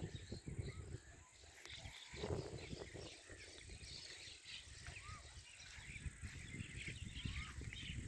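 Small birds chirping faintly and repeatedly, with a few short rising-and-falling calls, over a low, uneven rumble on the microphone.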